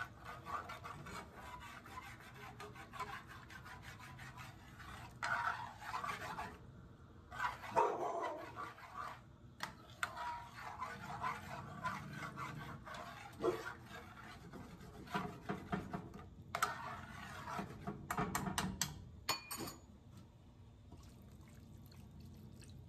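Metal spoon stirring and scraping along the bottom of a pan of simmering wine and tomato-paste sauce, with liquid sloshing and irregular scrapes and clicks of spoon on pan.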